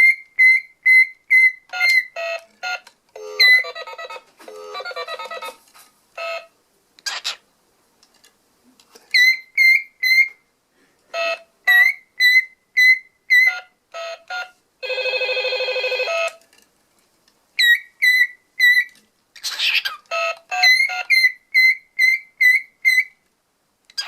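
Cockatiel calling back and forth with a child's toy phone's electronic beeps and ring tones: runs of short, evenly spaced high chirps and beeps, a warbling passage early on, and a buzzy ring lasting about a second and a half near the middle.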